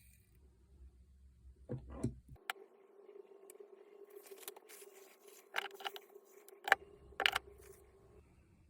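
Several sharp clicks and knocks of hard tool parts being handled and set down while an electric demolition hammer is taken apart, over a faint steady hum.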